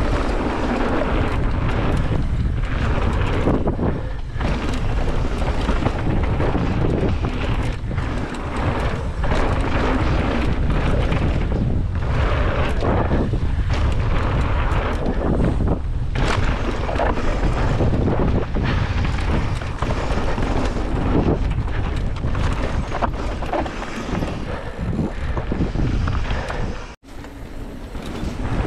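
Wind buffeting an action camera's microphone as a mountain bike descends a dirt jump line at speed, with tyres rumbling on the dirt and frequent knocks from the bike over jumps and landings. The sound cuts out for a moment near the end.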